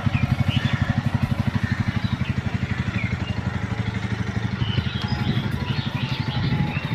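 Bajaj Pulsar NS160's single-cylinder engine idling steadily, its firing pulses evenly spaced.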